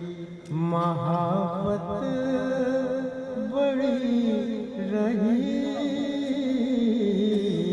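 A man singing lines of Urdu verse in tarannum, the melodic chanted style of mushaira recitation, with long held, wavering notes.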